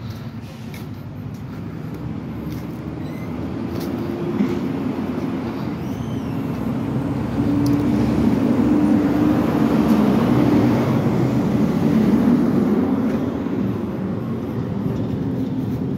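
Mack MRU garbage truck with a Heil front-loader body driving past: its engine drone grows louder, is loudest about halfway through, then eases off as the truck pulls away.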